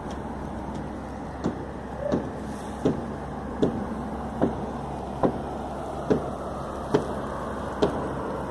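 A series of hard strikes, evenly spaced about one every 0.8 seconds and nine in all, starting about a second and a half in, over a steady low rumble.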